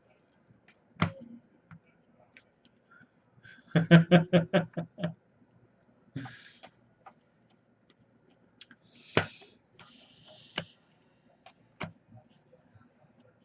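Trading cards and packs being handled on a table: scattered clicks and taps, and a couple of short rustles like wrappers, the longer one near the end. About four seconds in there is a brief pulsed burst of laughter.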